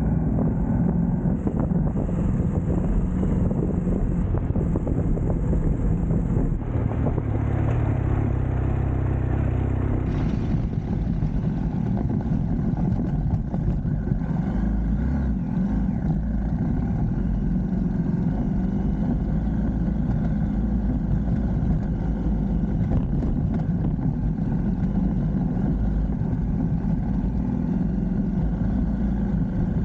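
A vehicle engine running steadily while driving, with a shift in its tone about ten seconds in.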